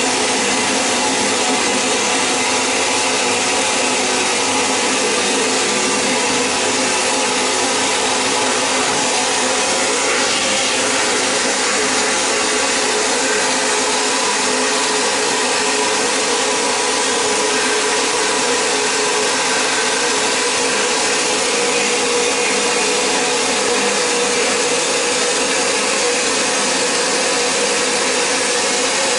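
VH800P vapor blasting machine's gun spraying a water-and-abrasive slurry driven by compressed air onto an aluminium cylinder head: a steady, loud hiss with a faint steady tone under it, unbroken throughout.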